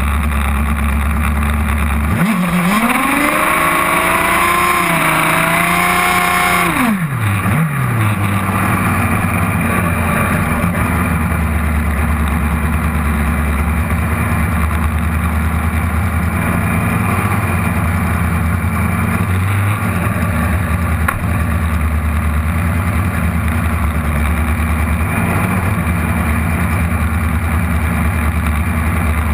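Modified Kawasaki drag bike's engine idling steadily while staged, heard up close. From about two seconds in an engine revs up, holds high for about five seconds and drops away sharply.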